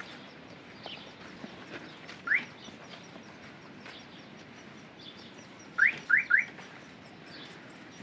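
A bird chirping: one short rising chirp, then a few seconds later three quick rising chirps in a row.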